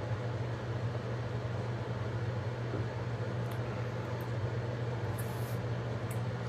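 Steady low electrical or fan-like hum under an even hiss, the room's background noise, with a few faint light clicks midway.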